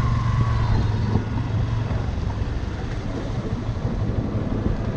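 Motorcycle engine running while riding, a steady low hum with wind rushing over the microphone; the engine note eases off slightly about a second in.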